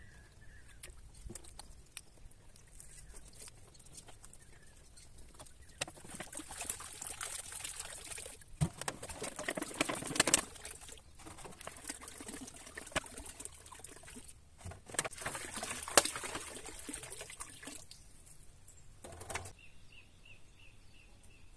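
Water poured from plastic bottles into a small rock-hollow pool, splashing and trickling in several runs with short breaks between them.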